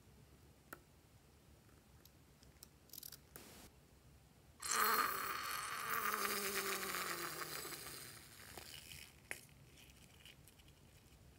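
Faint snips of scissors cutting a glue-filled rubber balloon, then about four and a half seconds in the balloon's cut neck buzzes and sputters as thick slime glue is squeezed out through it, the buzz slowly falling in pitch for about four seconds before dying away.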